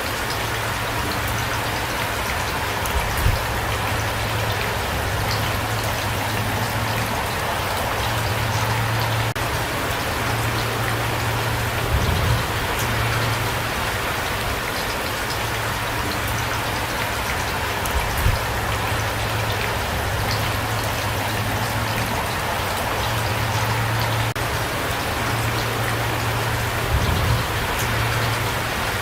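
Steady rain falling, an even hiss, with a few brief low thuds scattered through it.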